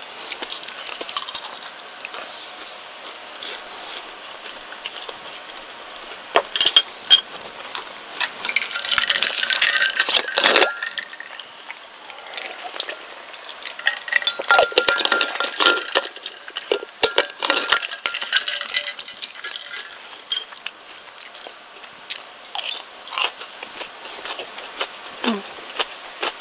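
Scattered clinks and clicks of chopsticks against dishes while someone eats fried chicken (karaage) and chews, with a sip from a drink can partway through.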